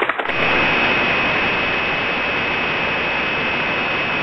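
Steady hiss of static-like noise that cuts in just after the start, with a faint high steady tone running through it.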